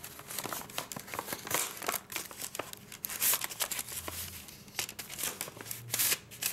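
Paper rustling and crinkling in irregular bursts as a paper envelope is handled and a folded letter is slid out of it.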